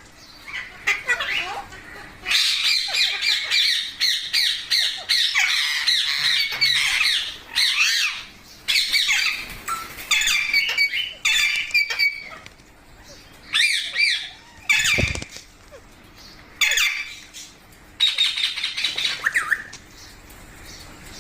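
Green pet parrots squawking and chattering in quick runs of short calls, broken by brief pauses, with a single knock about fifteen seconds in.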